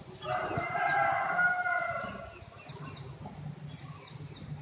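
A rooster crowing, one long call of about two seconds, followed by two quick series of short high chirps.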